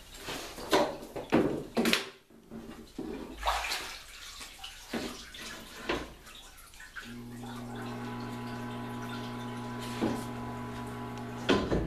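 Framed screens knocking and water sloshing as the screens are handled and dipped into a screen-printing reclaim tank. About seven seconds in a steady electric hum starts, with a few more knocks over it.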